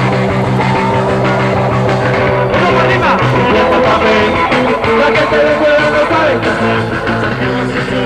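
Live rock band playing an instrumental passage: guitar, bass and drums, loud and steady, with held chords and bending lead lines.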